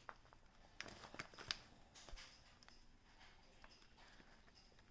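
Near silence: room tone, with a few faint, short clicks in the first two seconds.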